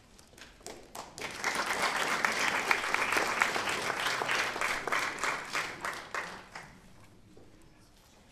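Audience applauding. The clapping starts about a second in, holds for several seconds and dies away near the end.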